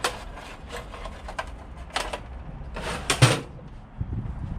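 Irregular clicks and clinks of metal hand tools being handled, a 13 mm socket among them, with a louder knock about three seconds in.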